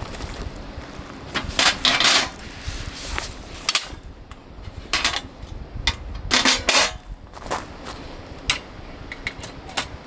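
Snow Peak IGT table being assembled: top panels and a wire basket set into its aluminum frame, giving a string of sharp knocks and clatters, several in quick runs, over a low rumble of wind on the microphone.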